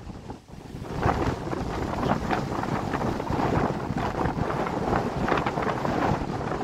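Strong gusty wind buffeting the microphone as a rough, rushing noise. It drops to a brief lull just after the start, then gusts back up about a second in.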